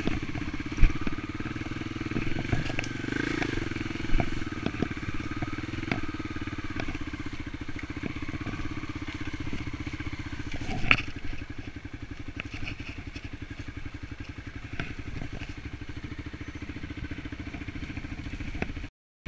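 Dirt bike engine running with a fast, even pulse while the bike is ridden over rough ground, with sharp knocks and rattles from the bike, the loudest about a second in and about eleven seconds in. After the second knock the engine settles to a quieter, steady note.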